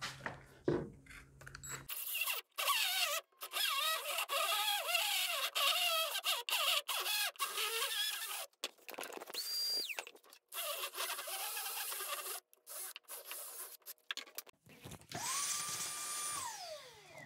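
Cordless drill spinning a carbide burr to enlarge a drilled hole, grinding with a wavering squeal and starting and stopping many times. Near the end a vacuum runs for about two seconds and winds down.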